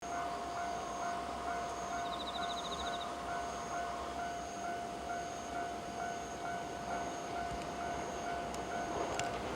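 Japanese level crossing warning alarm ringing, a steady tone with a repeating beat about twice a second, signalling a train approaching the crossing.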